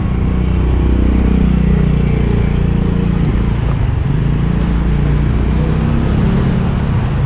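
A motor vehicle engine running close by, its pitch falling over the first couple of seconds and then rising again.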